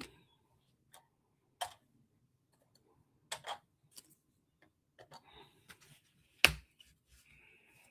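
Scattered light clicks and taps of trading cards and packs being handled on a table, with one sharper knock about six and a half seconds in and a brief soft rustle near the end.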